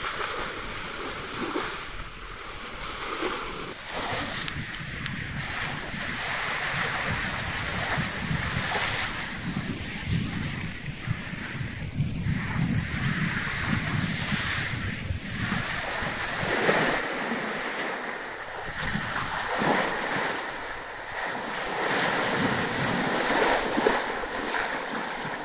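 Bow wave of a classic sailing yacht under sail, water rushing and splashing along the hull, with wind buffeting the microphone.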